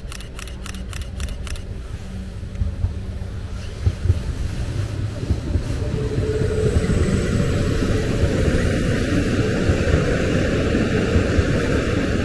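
Eurobahn class 429 electric multiple unit approaching and passing close by. The rumble of its wheels builds over the first six seconds and then holds steady and loud as the cars go past. A quick series of clicks, about four a second, sounds in the first second or so.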